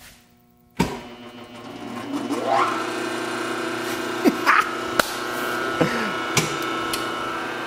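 An electric machine switched on with a sudden clunk about a second in, spinning up with a rising whine and then running with a steady mechanical hum. A few short falling chirps sound over the hum.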